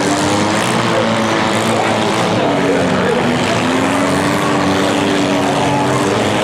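Several compact demolition-derby cars' engines revving together, their pitches rising and falling and overlapping.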